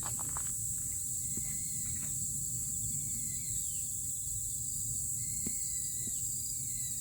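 Insects chirping in a steady, high-pitched outdoor chorus, with a few faint short chirps and a low rumble underneath.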